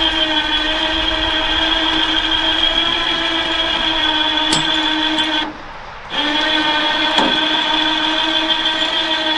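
Electric winch motor running under load with a steady whine, cutting out for under a second about halfway through and then starting again.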